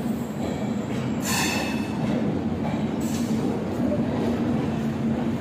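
Sealdah Rajdhani Express's LHB coaches rolling past along the platform as the train comes in, a steady rumble of wheels on rail. A brief high squeal cuts in about a second in, with a fainter one about three seconds in.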